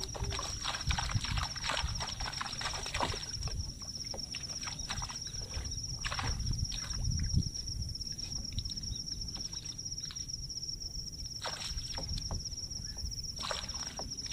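Water splashing and dripping as a hoop lift net (paktang) is hauled up out of the water beside a small boat: a quick run of short splashes and trickles, dense for the first half and thinning out later. A steady high-pitched whine sounds throughout.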